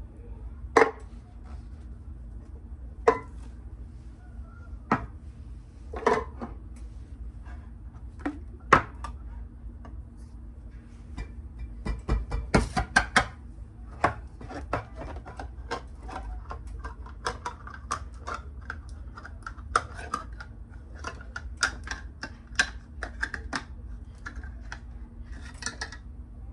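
Sharp metallic clicks and knocks from handling and opening a can of coconut milk: a few single clicks at first, then a rapid, uneven run of clicks and taps from about halfway through.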